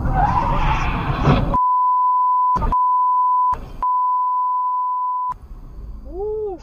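Road and traffic noise, cut off about one and a half seconds in by a steady 1 kHz censor bleep that lasts nearly four seconds. The bleep is broken twice by short noisy bursts.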